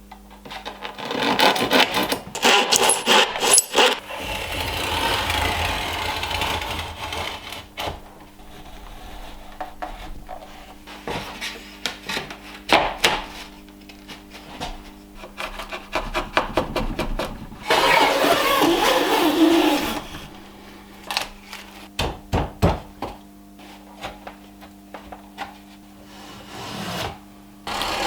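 Hand woodworking tools shaving wood: stroke after stroke of planes and a drawknife scraping through the grain, with taps and knocks in between. The longest, loudest run of shaving comes about two-thirds of the way through.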